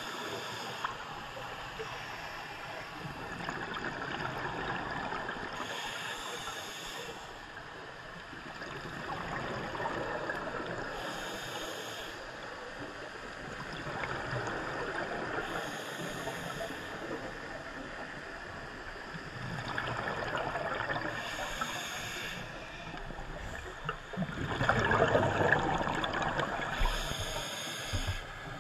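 Scuba diver breathing underwater through a regulator: a short hiss of inhalation about every five seconds, each followed by the rushing gurgle of exhaled bubbles.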